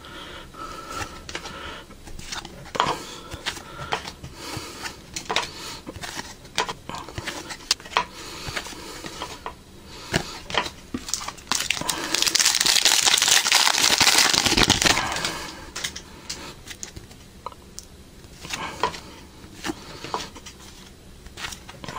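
Foil trading-card pack wrapper crinkling and tearing open, with short clicks and crackles of cards and wrapper being handled. A longer, louder tearing crinkle comes about twelve seconds in and lasts about three seconds.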